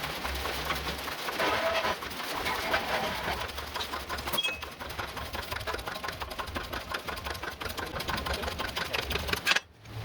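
Hydraulic jack bending welded test coupons for a root or face bend test: a fast, even mechanical clatter over a low hum, which cuts off suddenly near the end.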